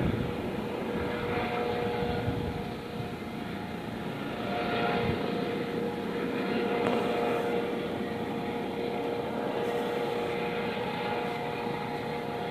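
A steady engine drone with a constant hum.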